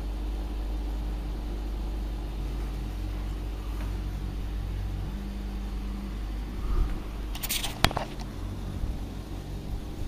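Steady low electric hum of a running aquarium filter pump, heard close to the tank. A short crackle and a single sharp click come about seven and a half seconds in.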